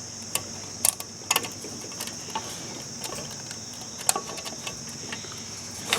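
Small parts of an electric fan motor being handled and fitted by hand: scattered light clicks and taps, a few sharper ones about a second in and again around four seconds in, over a steady high-pitched hiss.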